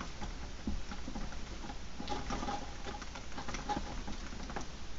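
Nylon paracord being pulled snug and rubbed through the fingers while tightening a bracelet knot: irregular light rustling and small scratchy clicks.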